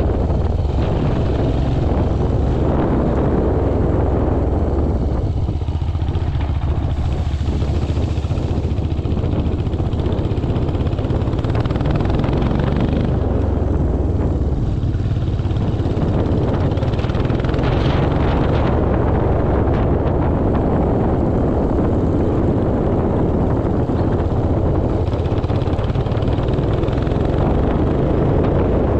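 Royal Enfield Himalayan's single-cylinder engine running steadily while the motorcycle is ridden off-road.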